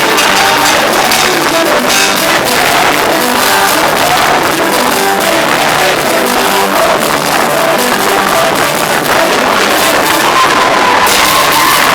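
Loud live church praise music, a band with electric guitar playing, and voices singing and shouting along.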